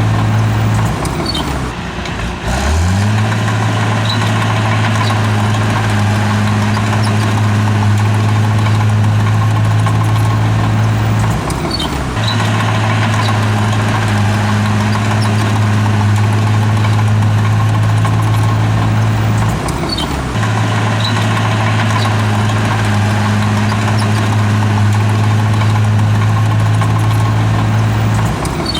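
Heavy diesel engine of an earthmoving machine running steadily at high speed. Its pitch dips and comes back up briefly about every eight seconds, three or four times, with faint high squeaks over the drone.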